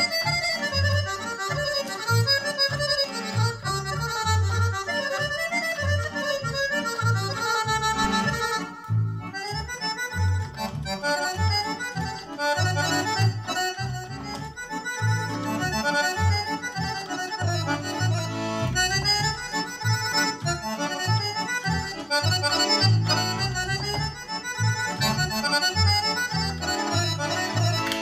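Roland V-Accordion, a digital piano accordion, playing a lively Balkan kolo dance tune: a quick melody on the right-hand keys over a steady bass-and-chord rhythm from the left hand. The music thins briefly about nine seconds in.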